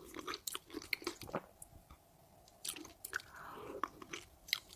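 Close-up mouth sounds of a person chewing fufu: soft wet smacks and clicks in irregular runs, with a short pause about two seconds in.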